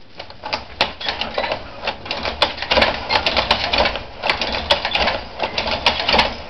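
Hand-turned braid-making machine with a Jacquard head clattering as it is cranked: a quick, irregular run of clicks and knocks from its moving levers, hooks and lifters.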